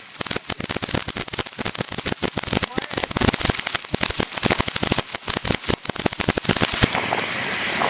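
A string of firecrackers going off: a fast, irregular run of sharp cracks for about seven seconds that stops suddenly.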